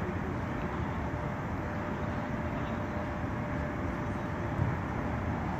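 Steady low background noise outdoors with a faint steady hum, and a single short knock about four and a half seconds in.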